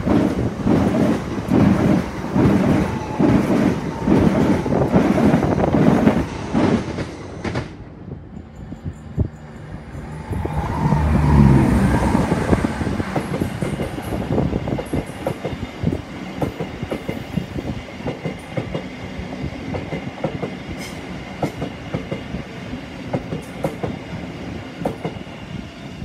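Electric trains passing at speed: a Thameslink Class 700 multiple unit clatters loudly and rhythmically over the rail joints for about the first seven seconds, then the sound drops off suddenly. A second train passes with a swell of low steady motor hum about eleven seconds in, and a fainter rumble and clatter carries on, fading toward the end.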